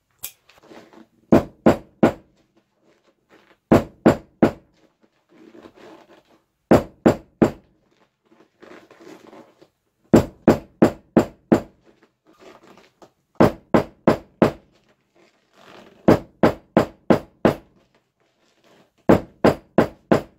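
Staple gun fastening an ATV seat cover: sharp clacks in quick bursts of three to five, a burst about every three seconds.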